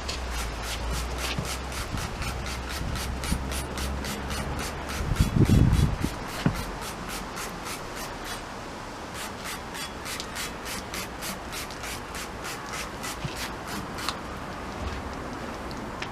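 Bicycle frame being scrubbed clean under bike cleaner spray: even back-and-forth rubbing strokes, about four a second, with a brief dull thump about five seconds in.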